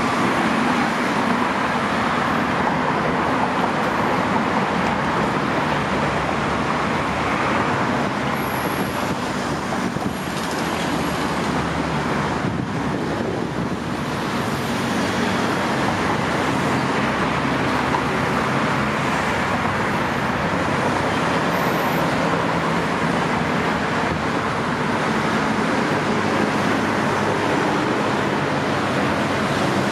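Steady road traffic on a wide multi-lane city road, cars and buses passing, easing off slightly for a few seconds in the middle.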